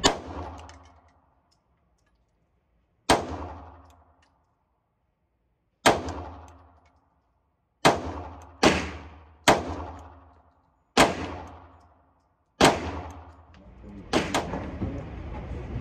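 Sig P365XL pistol with a compensator on a threaded barrel firing about nine single shots at uneven intervals of one to three seconds, a few in quicker succession around the middle. Each shot is a sharp crack followed by an echoing tail in the indoor range that dies away within about a second.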